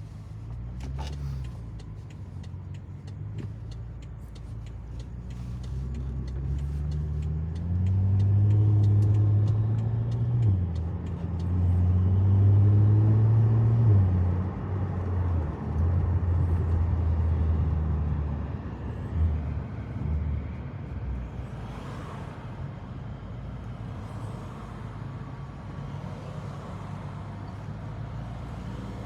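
BMW M6 engine pulling hard through the gears: the engine note rises, drops at each shift, then eases off into a steadier, quieter cruise. A run of light clicks comes in the first several seconds.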